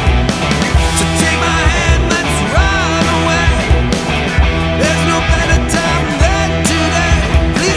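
Loud grunge-leaning rock band playing, with distorted electric guitar, bass and a steady drum beat, and a melodic line that bends up and down in pitch over the top.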